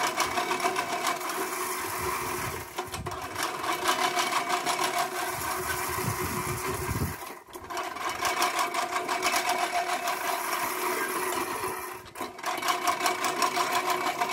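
Manual push reel lawn mower rolling over grass, its spinning reel blades whirring and clattering rapidly against the bed knife as they cut. The sound breaks off briefly three times, about three, seven and twelve seconds in, between pushes.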